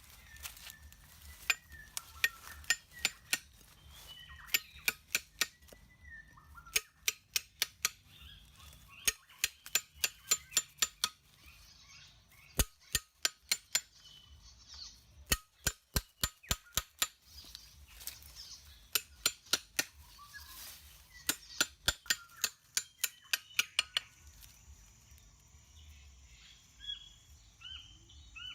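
Sharp, hard strikes in runs of several at about two to three a second, stopping about 24 seconds in, with birds calling behind them.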